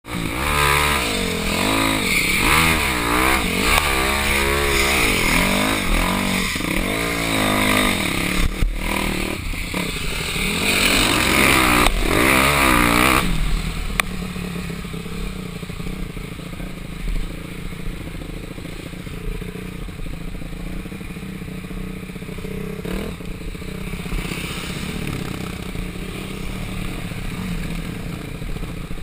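Dirt bike engine heard from on board, revving up and down repeatedly through the trail riding with a rushing hiss over it; about halfway through it drops abruptly to a quieter, steadier low running.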